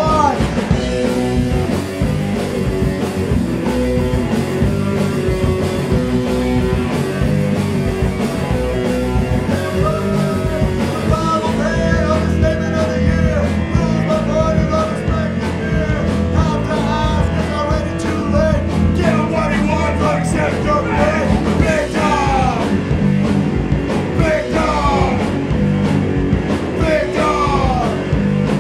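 Punk rock band playing live and loud: distorted electric guitar, bass guitar and drums, with singing over the top.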